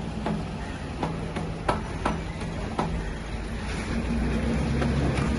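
Diesel engine of a 10 kVA generator set being started with a hand crank: a low engine sound with sharp clicks and knocks over the first three seconds, growing louder about four seconds in.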